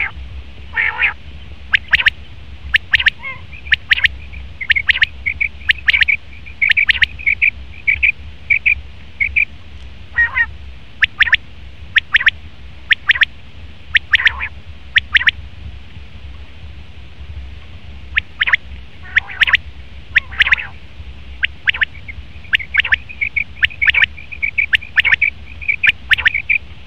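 Male common quail calling over and over: short, sharp notes in quick groups, with runs of rapid high notes in between and a short pause about two-thirds of the way through.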